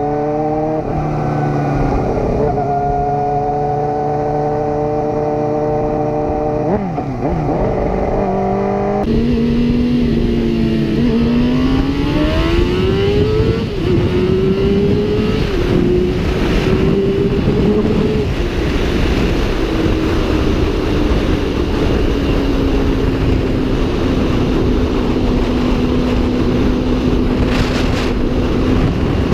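Suzuki GSX-R750 SRAD inline-four sport motorcycle engine heard from on board at speed. It holds a steady high note, then accelerates through several quick upshifts, the pitch climbing and dropping at each shift, and settles into a steady high-speed cruise with a rush of wind.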